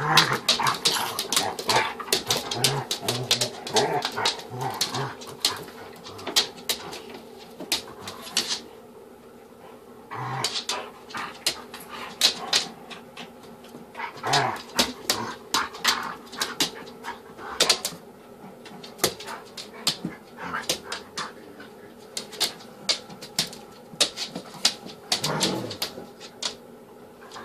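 A Jack Russell–Shih Tzu mix puppy and a Golden Retriever–Husky mix dog play-fighting: short yips and dog noises over quick scuffling and clicks on a wooden floor, with a brief lull about nine seconds in.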